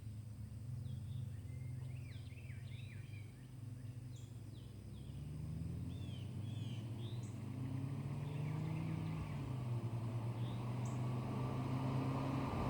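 BMW M6's V10 engine running at a distance, a low steady drone that rises briefly in pitch mid-way and grows louder toward the end. Birds chirp over it in the first half.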